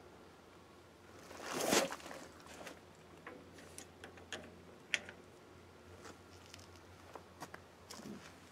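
Handling noise: a brief rustling brush about a second and a half in, then scattered light clicks and taps as a brake hose and its metal banjo fitting are handled at the caliper.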